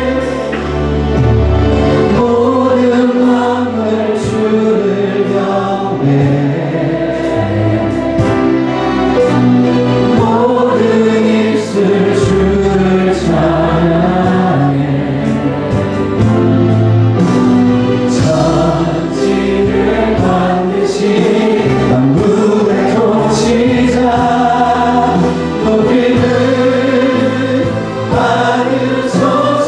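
Group of voices singing a contemporary worship song together over band accompaniment with a held bass line.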